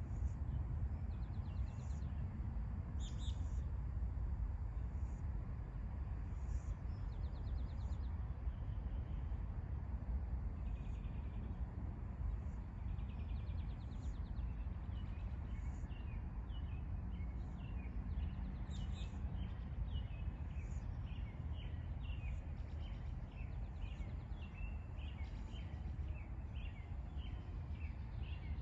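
Wild birds chirping and trilling, with a quick run of short repeated chirps in the second half, over a steady low outdoor rumble.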